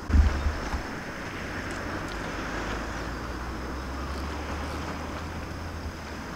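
Seaside outdoor ambience: a low wind rumble on the microphone over a steady hiss of water, with a brief low thump at the very start.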